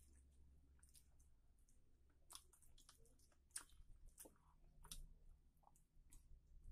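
Faint, irregular wet clicks and squishes of fingers mixing rice into chicken curry by hand.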